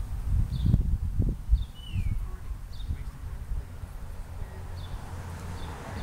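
Small birds chirping: short high chirps every second or so, with one downward-sliding call about two seconds in, over a low, uneven rumble.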